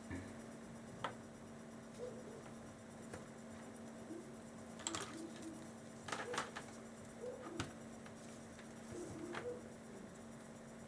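Light scratching and small irregular clicks of hand tools working on a small plastic Bluetooth earpiece, over a steady low hum.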